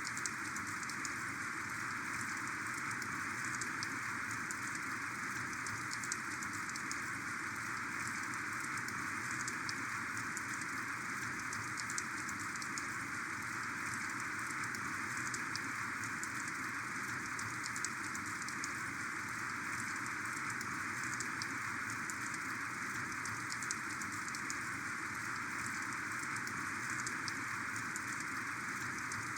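Heavy rain falling steadily: a dense, even hiss with many sharp individual drop ticks scattered through it.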